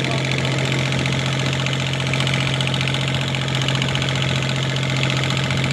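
Fishing boat's engine running at a steady speed on board, a constant low drone with a rough, rapid pulse over the sound of the boat moving through the water.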